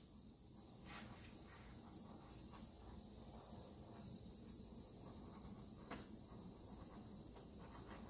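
Faint steady hiss of a handheld torch flame passed over wet acrylic paint, with a couple of faint clicks.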